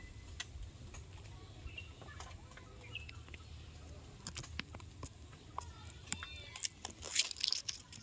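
Outdoor ambience in a bamboo grove: a low rumble, a few short faint bird chirps and scattered clicks and rustles, with a louder cluster of rustling clicks near the end.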